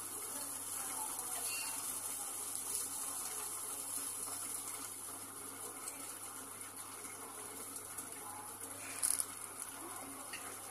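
Steady soft hiss of a rava dosa cooking in a covered nonstick frying pan on a gas burner, with a brief faint knock about nine seconds in.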